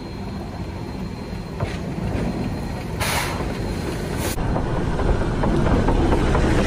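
Dixiana #1, a geared Shay steam locomotive, approaching and working along the track, growing steadily louder, with a loud hiss of steam about three seconds in that lasts over a second. Near the end it rolls right over a rail-level microphone with a heavy, close rumble of wheels and running gear.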